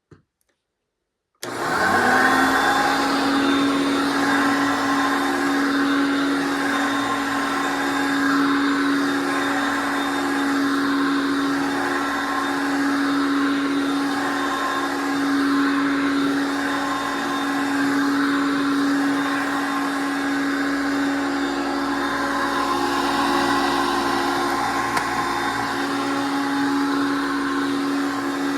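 1979 Hoover Concept One U4205 upright vacuum cleaner switched on about a second and a half in. Its motor spins up quickly, then runs steadily with a constant whine.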